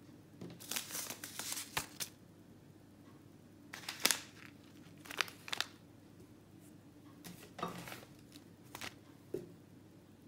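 Paper seed packets rustling and crinkling as they are handled and slid over one another, in several short bursts.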